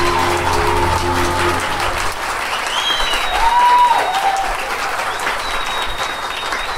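Audience applauding and cheering at the end of a dance number, with the last held notes of the music stopping about two seconds in. A few high-pitched whoops rise over the clapping.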